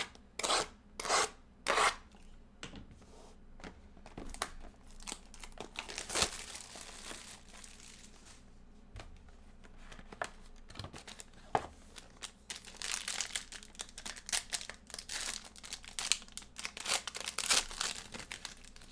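Plastic shrink wrap ripped in a few quick tears off trading-card boxes, then a cardboard card box opened and a foil card pack torn and crinkled, the crinkling dense near the end.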